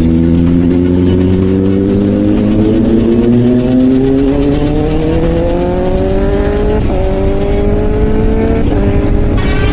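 Kawasaki ZX10R inline-four engine accelerating hard, its pitch climbing steadily. It upshifts twice, about seven seconds in and again under two seconds later, and the revs climb again after each shift.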